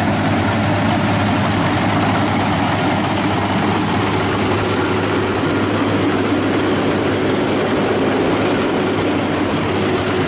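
FMWORLD WD 102pro rice combine harvester running steadily under load as it cuts rice. Its engine drone is blended with the noise of the header reel and cutter bar working through the crop.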